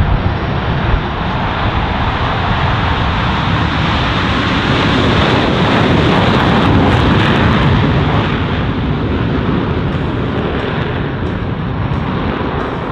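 Four F/A-18 Hornet jets in afterburner on their takeoff run, a loud roar that builds to a peak about halfway through as they pass, then slowly fades.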